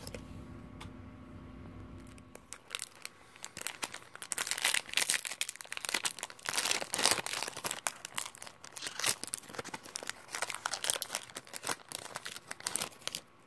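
Foil Pokémon card booster-pack wrapper crinkled and torn open by hand, a dense run of sharp crackles starting about two seconds in.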